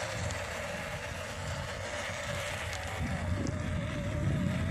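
Small electric motor and gearbox of an MN99S 1:12 scale RC crawler whining as it drives, the pitch wavering with the throttle. A low rumble of the tyres over dirt and grass grows louder about three seconds in.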